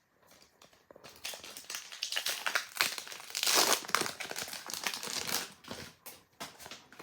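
Crinkling and crackling of a foil Pokémon card booster pack wrapper being handled and torn open, loudest about halfway through and dying away near the end.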